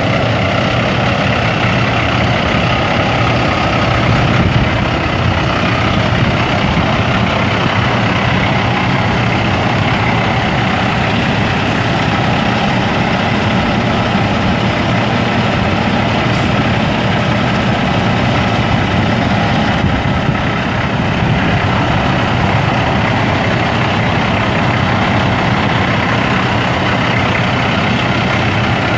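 Cummins ISX 14.9-litre inline-six turbo diesel of a 2007 International 9400i semi tractor idling steadily.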